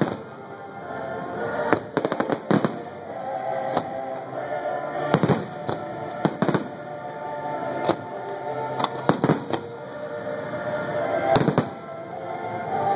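Aerial firework shells bursting with sharp bangs, singly and in quick clusters, over steady show music with held notes.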